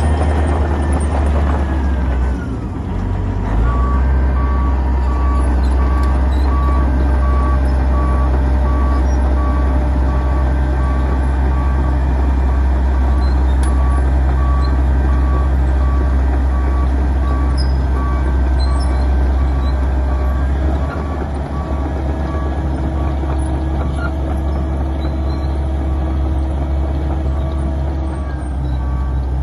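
Wirtgen W220 cold planer's large diesel engine running with a deep, steady drone as the tracked machine drives; the engine dips briefly two to three seconds in and comes back up. From then on its travel alarm beeps over and over at an even pace.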